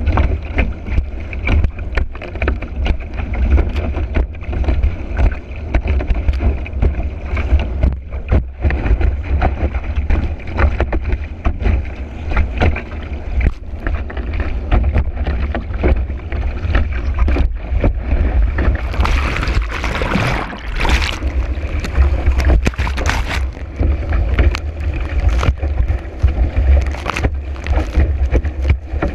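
Kiteboard planing fast over choppy water in strong wind, heard from a camera mounted on the board. Wind buffets the microphone in a constant low rumble, and the board knocks and slaps on the chop many times. A louder hiss of spray comes about two-thirds of the way through.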